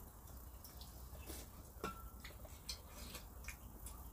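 Light, scattered clicks and clinks of a metal spoon and chopsticks against dishes while eating, with one clearer clink a little under halfway through.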